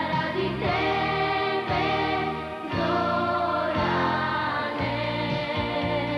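Children's pop song: a young girl sings into a microphone over an instrumental backing, with a choir of children's voices joining in.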